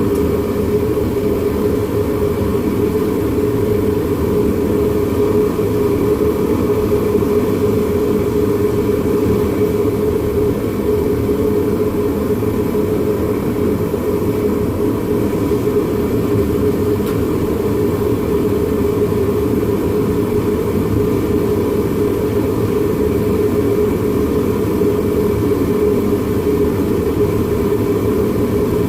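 A forge running steadily while a steel blade heats toward non-magnetic before an oil quench: a continuous, even rushing noise with a steady hum through it.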